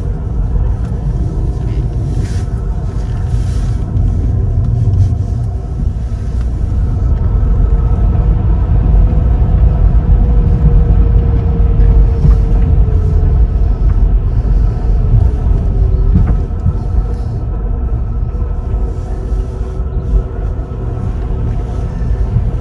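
Car driving along, heard from inside the cabin: a steady low rumble of engine and road noise, swelling a little in the middle.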